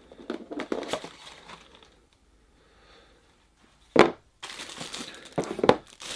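Unboxing a small boxed pocket knife: rustling and handling of the cardboard box, a sharp knock about four seconds in, then crinkling of the clear plastic wrapping around the knife.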